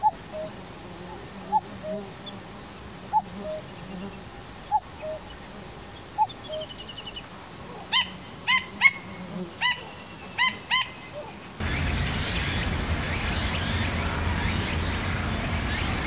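Male common cuckoo calling "cuck-oo", a higher note then a lower one, five times about every one and a half seconds. Later several short, sharp, louder calls from another bird follow in quick succession, and near the end a steady noisy background takes over.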